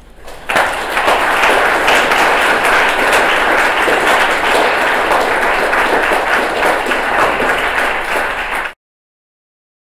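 Audience applauding, a dense crackle of many hands that starts about half a second in and cuts off suddenly near the end.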